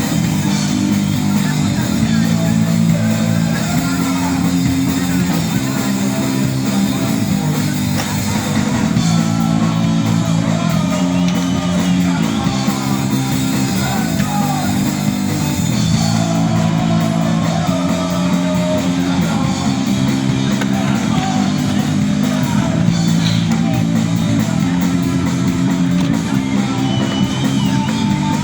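Loud rock music with guitar chords over a drum kit, steady throughout, of the punk kind played at a skate-punk festival.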